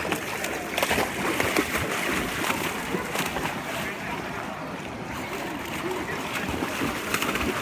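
Water splashing and sloshing as a dog wades and paddles through a shallow river, with the stream's running water behind.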